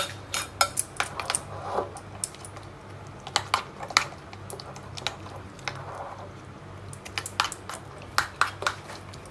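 Kitchen utensils clinking and knocking in irregular sharp clicks, as spoons and dishes are handled during food preparation, over a low steady hum.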